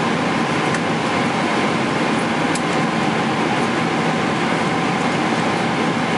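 Steady cabin noise of a Boeing 777-300ER airliner in flight: an even rush of air and engine noise with a faint steady hum, unchanging throughout.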